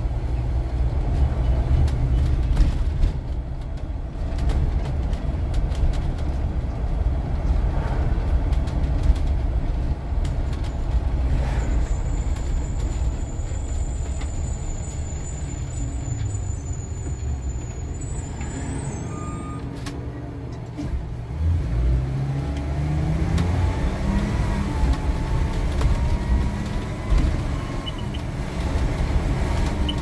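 Bus cabin noise while driving: steady engine and road rumble, with the engine's pitch rising a few times about two-thirds of the way through. A faint high thin tone holds for several seconds midway.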